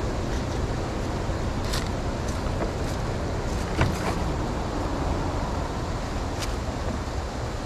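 Creek water rushing steadily, with a few light knocks and one sharper knock about four seconds in from the black plastic debris being carried past.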